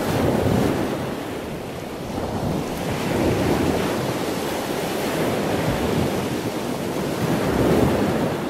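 Wind buffeting the microphone over choppy sea water washing at the surface, a steady rush that swells and eases every few seconds.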